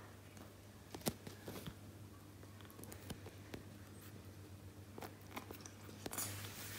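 Kitten moving about on a wooden floor: faint, scattered clicks and taps of its paws and claws, the sharpest about a second in, over a steady low hum.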